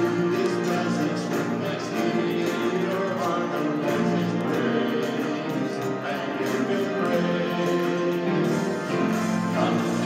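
Contemporary worship song, male voices singing to piano accompaniment.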